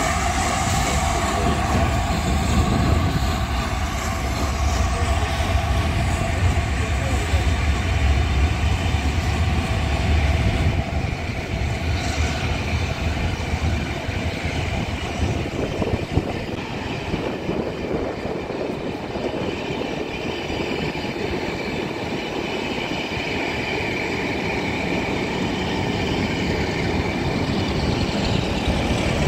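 Steam-hauled passenger train behind LNER A4 Pacific 60007 'Sir Nigel Gresley' pulling away: the tender and then the coaches roll steadily past at low speed. A heavy low rumble for about the first ten seconds eases to a lighter, steady rolling noise as the coaches follow.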